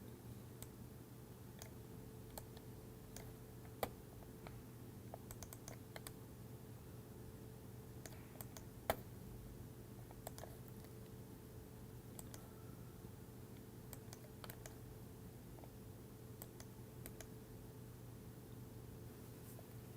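Scattered faint clicks of a computer mouse and keyboard over a steady low hum, with two sharper clicks about 4 and 9 seconds in.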